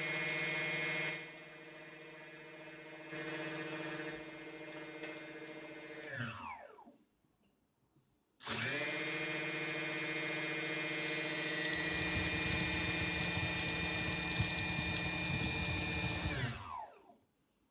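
DJI 2212/920kv brushless motors on an F450 quadcopter running with a steady high whine, then winding down with falling pitch. They start again louder about eight seconds in, and from about twelve seconds an irregular low knocking runs under the whine until the motors wind down near the end. The knocking is the motor fault being shown.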